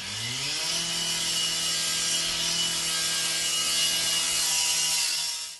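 Angle grinder cutting through a metal surveillance mast: its motor whine rises in pitch over the first half-second, then holds steady under the hiss of the disc biting the metal. It cuts off suddenly near the end.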